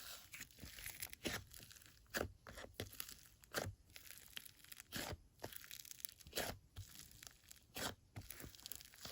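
Green clay slime with faux clay sprinkles being handled, giving irregular crackles, pops and crunches, one or two a second.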